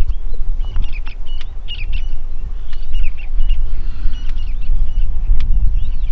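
Birds chirping in short, repeated calls over a loud, uneven low rumble, with a few sharp clicks.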